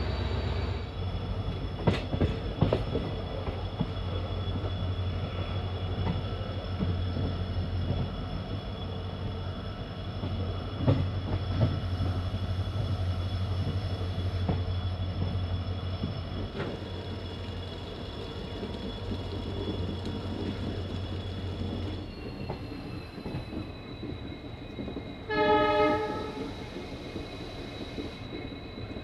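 WDP-4D diesel locomotive's engine humming steadily with a high turbo whine as the train pulls away and accelerates, a few clanks sounding early on. The whine drops in pitch about three-quarters through, and a short horn blast sounds near the end.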